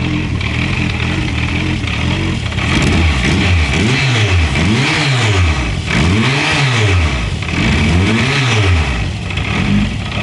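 Münch motorcycle engine idling, then from about three seconds in revved up and let back down several times, each rev rising and falling in pitch over about a second and a half.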